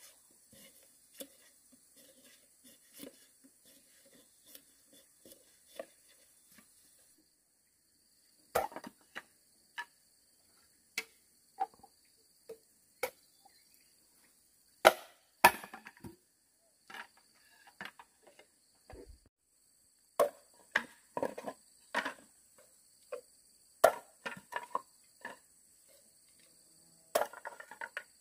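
Hand tools striking bamboo: irregular sharp chops and knocks, a few faint ones in the first seconds, then louder and more frequent from about eight seconds in, with quick clusters of blows later on.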